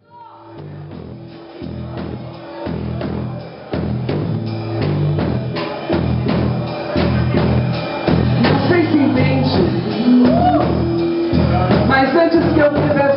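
A blues band of guitar, bass guitar and drum kit playing, fading in over the first few seconds with a steady beat.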